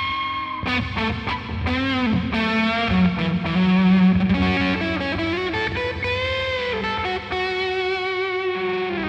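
Distorted electric guitar played through a DigiTech Polara reverb pedal on its Halo setting, with a Holy Stain pedal supplying the distortion. It plays sustained lead notes with bends and vibrato, washed in reverb.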